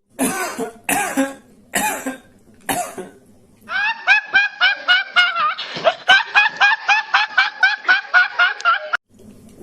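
Hen cackling, probably the egg song after laying: four separate loud squawks about a second apart, then a fast run of repeated cackling notes, about four or five a second, that stops abruptly.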